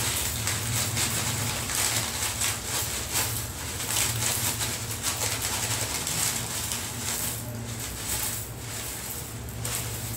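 Plastic bag of corn flakes crinkling as the flakes are crushed and shaken out onto a plate, a dense run of crackles over a steady low hum.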